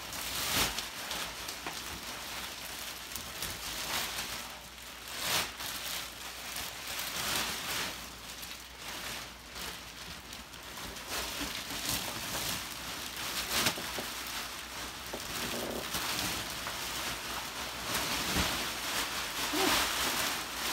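Clear plastic wrapping crinkling and rustling as it is pulled off a memory foam mattress, with frequent sharp crackles.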